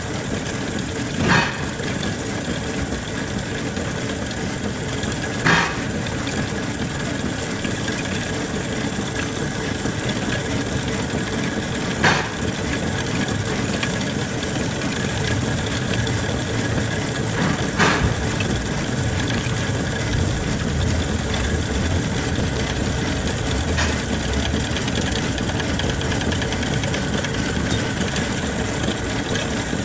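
Lathe machine running steadily, a constant mechanical hum with a few sharp clicks several seconds apart.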